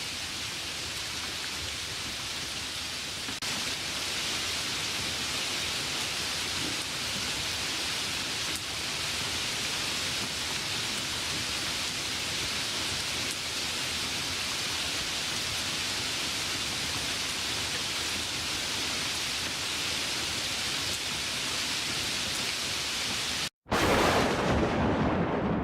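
Steady rain hiss. Near the end it cuts off abruptly and a loud thunderclap breaks in, rumbling and then fading away.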